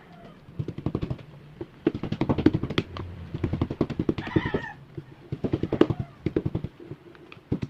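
Rapid, irregular clattering taps and knocks, with a young child's short, high-pitched cry about four seconds in.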